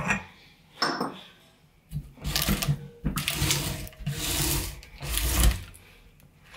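Hand-cranked cast-iron meat grinder being taken apart while clogged with crushed water-bead (Orbeez) gel. Its metal parts scrape and clink, and the wet gel squelches, in several bursts as the mush and the front plate are worked loose.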